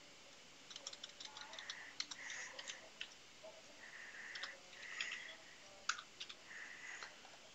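Faint, irregular keystrokes of typing on a computer keyboard.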